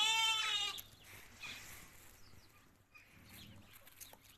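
A single loud chicken squawk about a second long, its pitch rising and then falling, right at the start; softer and quieter after it.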